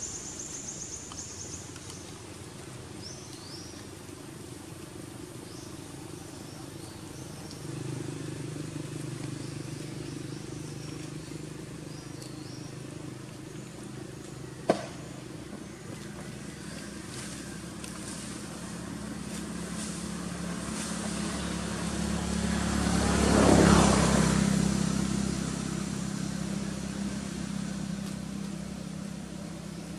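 A motor vehicle passing, its engine hum and rushing noise building to a peak about three-quarters of the way through, then fading away. A single sharp click sounds about halfway through.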